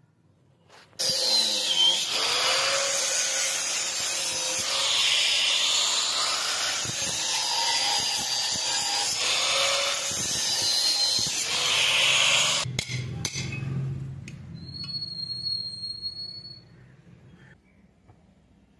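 Angle grinder cutting into a steel sprocket: a loud, continuous grinding whose pitch sags and recovers as the disc is pressed into the metal. It cuts off suddenly about two-thirds of the way through, leaving a quieter low hum for a few seconds.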